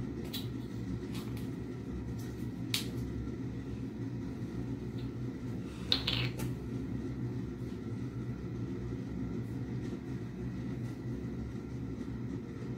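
Small plastic clicks from a steroid inhaler being handled and its cap taken off, the sharpest a brief click with a short hiss about six seconds in, over a steady low hum.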